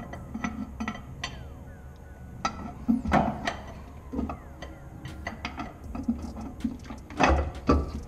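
Metal clinks and knocks of hand tools against an engine as an aluminum intake manifold is worked loose from a V8's cylinder heads, with the loudest knocks in a cluster about three seconds in and again near the end.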